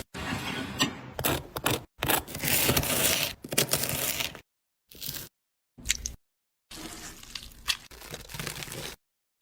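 Cooking ASMR food-preparation sounds: crunching, scraping and crackling noises with sharp clicks, in short clips cut apart by sudden gaps of total silence.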